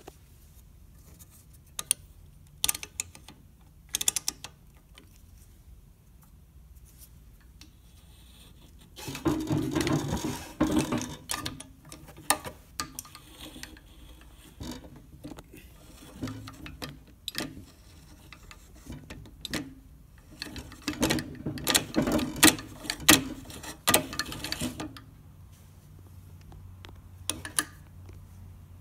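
Abloy key-cutting machine for DiskLock keys being worked by hand: sharp metallic clicks from its levers and indexing mechanism, with two longer spells of dense clicking and clatter, a third of the way in and again past two-thirds.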